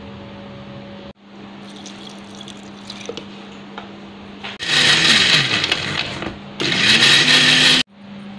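Electric blender running in two short bursts, about five seconds in and again near the end, chopping pandan leaves, lemongrass and ginger. Its motor pitch sags in the first burst and climbs back in the second.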